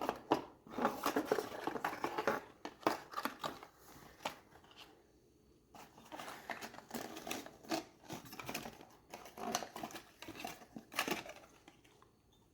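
Packaging rustling and crinkling as a small camera is unwrapped from its box, with scattered sharp clicks and handling knocks. The sounds come in two spells, with a short lull near the middle.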